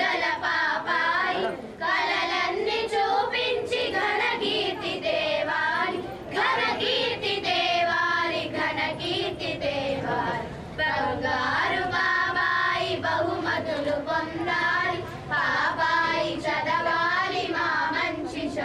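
A group of voices singing a cradle song together, the melody running on without a break.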